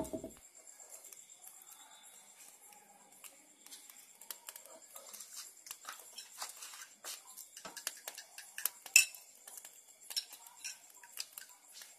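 Oil heating in a frying pan on a gas burner, giving scattered small pops and crackles that grow more frequent, the loudest about nine seconds in. A single knock at the very start.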